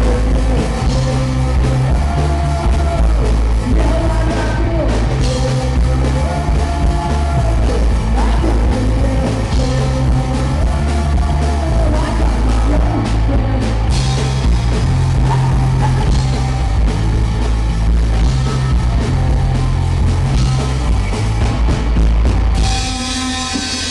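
Live rock band playing a song: electric guitar, bass and drum kit with a lead singer. The music stops near the end.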